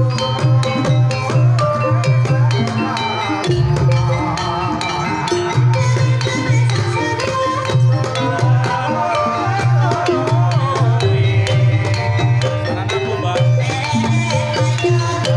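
Banyumasan gamelan music for tayub: a female sinden singing a wavering, ornamented line over struck gamelan notes and steady kendang drum strokes.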